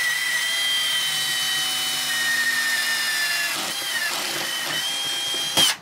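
Cordless drill running at speed, its bit boring into the plywood van floor. The whine falters and dips in pitch about two-thirds through, runs on again, then stops abruptly just before the end.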